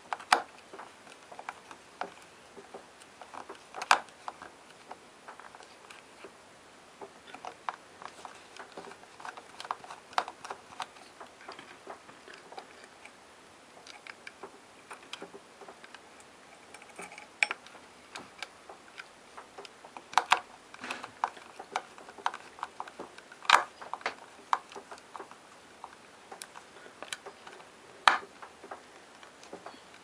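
Irregular small clicks and taps from wires being pushed into a plastic screw terminal block and its screws being turned with a small screwdriver, with a few louder knocks now and then.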